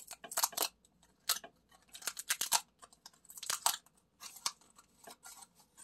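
Cardboard tabs on pull-tab lottery tickets being torn open one after another: an irregular series of short, crackly rips.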